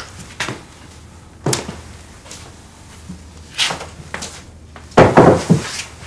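Wooden interior door handled and shut, heard as a few separate clicks and knocks. The loudest is a thud about five seconds in.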